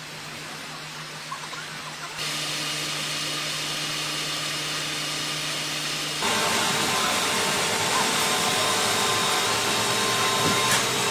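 Heavy-equipment diesel engines running steadily, a noisy hum with a few steady tones in it. It jumps abruptly louder about two seconds in and again about six seconds in.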